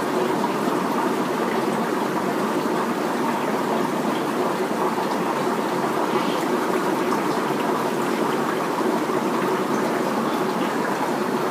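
Steady bubbling and rushing of water from an aquarium's air and filter system, even throughout.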